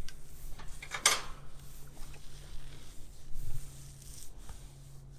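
Hands stroking and rubbing over a pig's coarse bristly hair: a soft scratchy rustle, with one louder rasping stroke about a second in.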